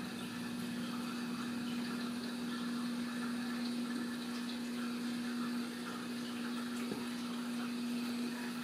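Steady low hum with an even hiss of running water, from a small water pump running.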